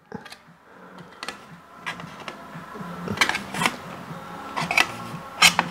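Adjustable wrench clinking and scraping against the edge of a thin steel strip as the strip's edge is bent and shaped by hand, giving a handful of sharp, irregular metallic clicks.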